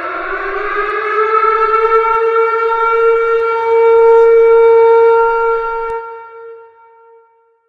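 Civil defense siren winding up in pitch to a steady wail, then dying away about six seconds in.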